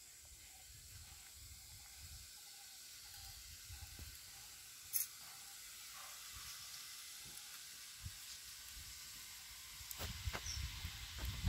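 Faint steady hiss from a wood fire under a clay pot of steaming finger millet puttu, with one sharp crackle about five seconds in and a few small knocks near the end.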